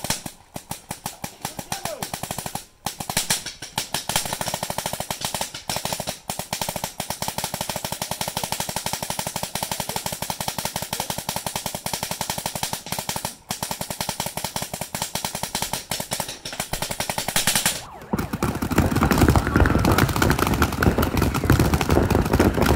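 Angel LED electropneumatic paintball marker firing long, fast strings of shots, about a dozen a second, broken by a few brief pauses. Near the end the shooting gives way to a louder rushing noise.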